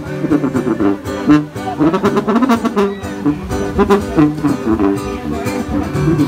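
Lively music led by brass instruments, with a steady beat of about three strokes a second.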